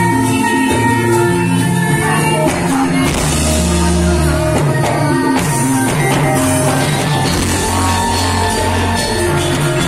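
Loud music with sustained pitched notes over a stepping bass line, turning busier and more percussive about two and a half seconds in.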